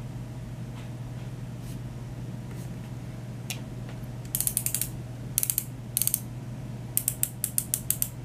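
A Smile Sciences teeth-whitening pen being twisted to push out its gel, its twist mechanism making rapid ratchet clicks. The clicks come in short runs from about four seconds in, as the pen is turned again and again because no gel has come out yet.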